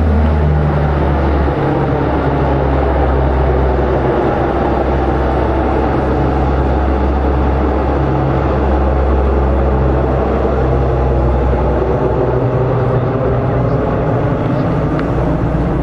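Aircraft engine drone, loud and steady, with low tones that shift slightly in pitch.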